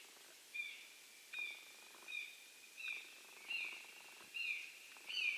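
A bird calling over and over: a short, clear, high note repeated at an even pace, about every three-quarters of a second, seven times.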